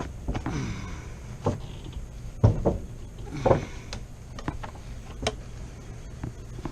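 A series of irregular knocks and clanks, as of tools or metal parts being handled, over a steady low hum.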